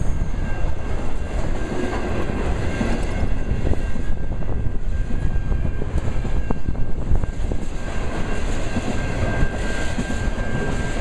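Intermodal freight train's trailer-carrying flatcars rolling past at close range: steady rumble of steel wheels on rail with frequent sharp clicks from the wheels and a thin steady high ringing tone.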